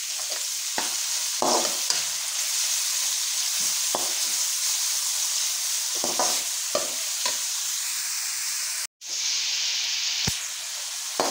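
Chopped capsicum, carrot and boiled chicken sizzling in hot oil in an aluminium wok, stirred and scraped against the pan by a metal slotted spoon in several separate strokes over a steady sizzle. The sound cuts out for an instant about nine seconds in.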